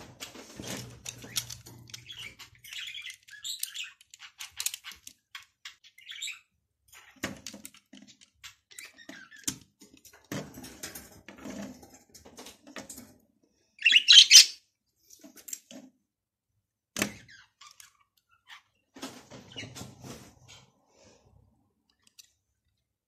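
Plastic Lego pieces being handled and pressed together on a tabletop: scattered light clicks, taps and rattles. One brief, louder high-pitched sound comes about fourteen seconds in, and a sharp knock a few seconds later.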